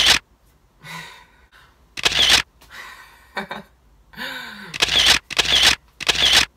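Camera shutter sound effects: about five identical sharp clicks, three of them in quick succession near the end, laid over a posing montage. Between the clicks there is a brief laugh.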